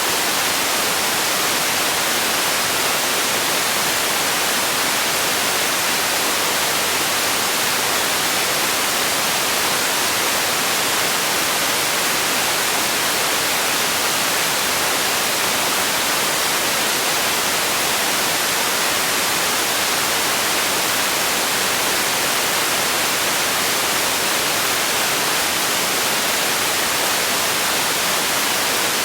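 Steady, unchanging hiss of synthetic white noise, brightest in the treble, with no events or variation.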